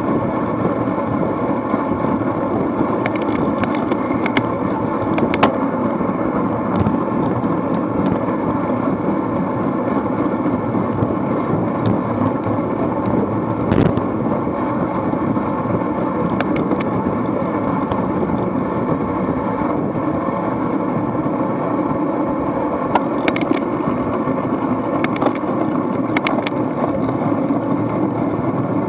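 Steady rush of wind and road noise on a bike-mounted action camera's microphone while riding at racing speed in a cycling pack, with a few scattered sharp clicks.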